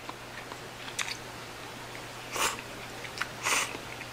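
A person eating instant ramen: two short slurps of noodles, about two and a half and three and a half seconds in, between soft chewing and a few small clicks.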